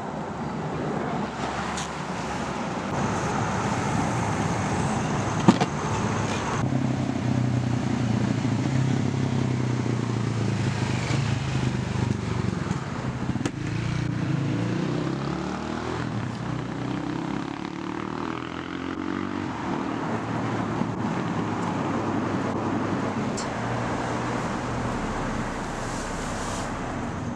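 Steady road traffic noise, with cars passing and engine tones rising and falling, and one sharp click about five seconds in.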